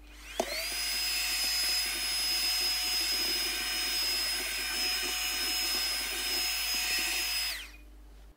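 Small handheld desktop vacuum cleaner switched on, its motor rising quickly to a steady high whine as it sucks up plastic sanding dust from a sheet of paper. It is switched off and winds down near the end.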